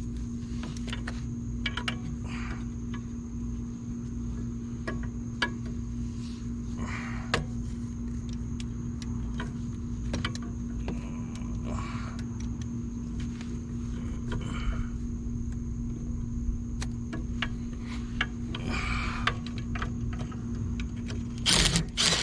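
Scattered metallic clinks, knocks and short scraping rasps of hand tools working on a lowrider's front hydraulic cylinder, with louder rasps near the end, over a steady background hum.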